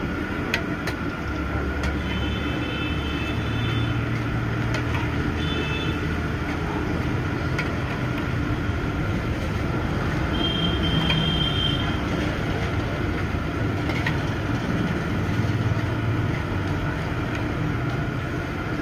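Pakodas deep-frying in a large iron kadhai of hot oil, a steady sizzle, with a few sharp clinks of the metal skimmer against the pan. Steady road-traffic rumble runs underneath, with a few short high tones.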